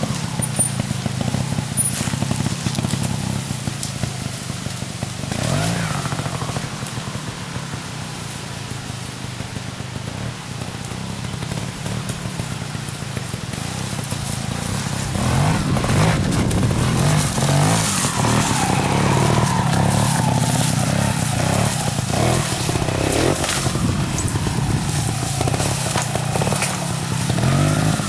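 Gas Gas trials motorcycle engine running at low revs with short throttle blips as it is ridden over obstacles. It gets louder about halfway through, with several quick revs rising and falling.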